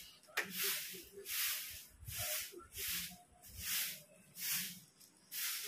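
Broom sweeping dust across a concrete yard: steady rhythmic swishes, a stroke a little under once a second.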